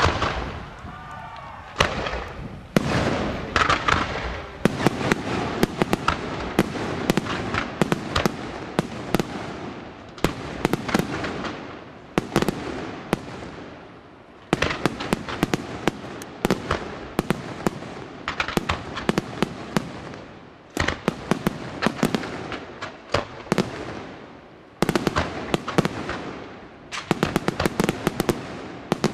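Aerial fireworks display: shells bursting in quick clusters of sharp bangs and crackles. The clusters come in waves every few seconds.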